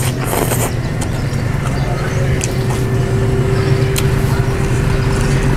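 Noodles slurped right at the start, over a steady low mechanical hum. A steady tone joins the hum about two seconds in.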